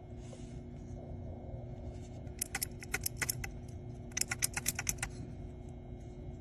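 Typing on a mechanical keyboard with clicky blue switches: two short flurries of sharp key clicks, about a second each, over a steady low hum.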